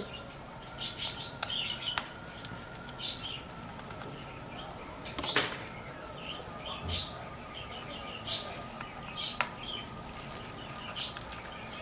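Short high chirps, like a small bird's, every second or two, over a faint steady whine, with one sharp click about five seconds in.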